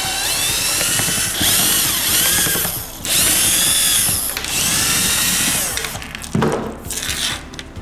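Cordless drill-driver backing out the screws of an angle grinder's gearbox head in four short runs, its motor whine rising and falling with the trigger. A few light clicks follow near the end.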